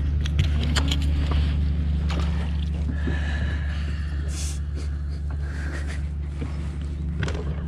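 Bass boat's motor humming steadily, with scattered light clicks and knocks of handling on the boat.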